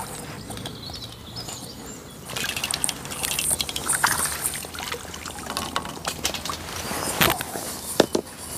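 Light splashing and trickling of water as a small fish is brought in on a pole, with small handling clicks and two sharp knocks of fishing tackle near the end.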